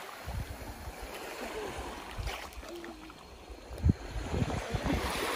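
Shallow sea water washing and lapping at the shoreline, over a low, uneven rumble, with a sudden thump about four seconds in.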